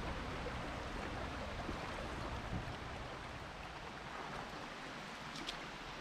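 River water running steadily over stones in a shallow stream, an even rushing hiss, with a low rumble underneath that fades about halfway through.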